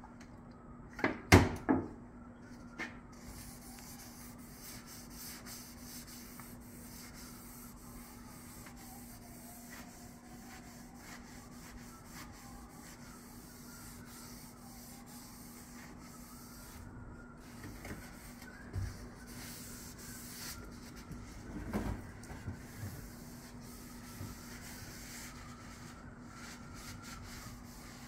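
A cloth rubbing along a wooden axe handle, wiping it down, with a couple of sharp knocks on the workbench about a second in. A steady low hum runs underneath.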